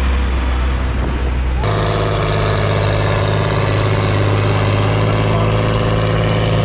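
Tractor diesel engine running hard under heavy load, pulling a brake sled, a loud steady drone. About a second and a half in the sound switches abruptly to a higher, fuller engine note.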